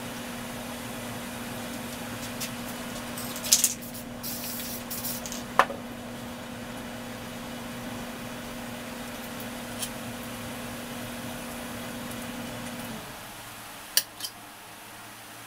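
Short hisses of aerosol spray paint, a few sharp clicks and clinks, over a steady electric hum that cuts off near the end.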